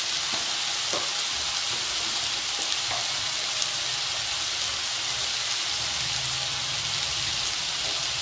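Chopped vegetables frying in hot oil in an aluminium kadai: a steady sizzle with a few faint pops.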